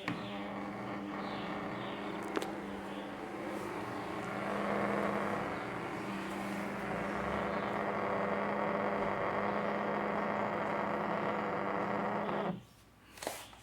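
Mobile phone vibration motor buzzing steadily for about twelve and a half seconds, then cutting off suddenly, followed by one short buzz near the end.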